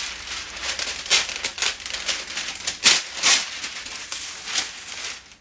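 Crinkling and rustling with many sharp crackles, as a sheet of kitchen wrap is handled and folded.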